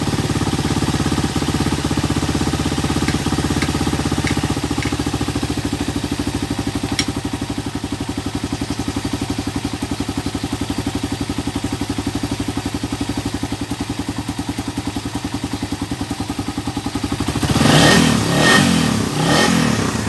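Suzuki Raider 150's single-cylinder four-stroke engine idling with an even beat while its freshly cleaned carburetor is tuned, then revved in three short blips near the end.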